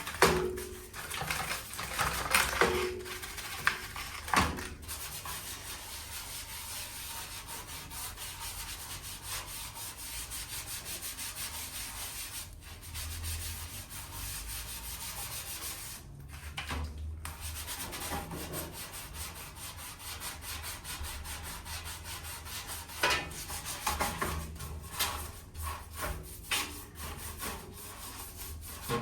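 Steady abrasive rubbing on the PC case, as in sanding, with two short pauses. Scattered knocks and clicks come near the start and again near the end.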